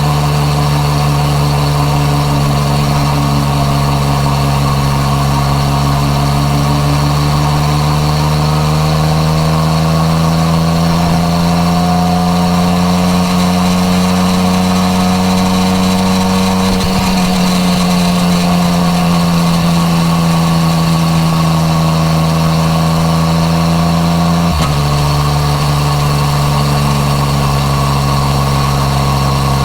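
Yamaha MT-09 Tracer's three-cylinder engine through an Akrapovič exhaust, under way on the road. The engine note is steady, slowly rises in pitch and eases back down, with a brief sharp break in the note near the end.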